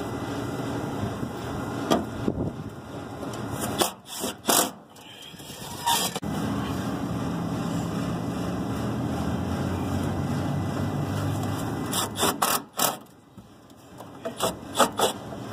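Scattered metal clicks, knocks and scraping from a hand tool working on the sheet-metal heat section of a rooftop HVAC unit, over a steady low rumble that swells in the middle.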